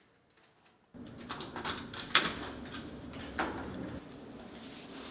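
A key working in a door lock with several sharp clicks of the lock and latch, starting about a second in, and the door being pushed open.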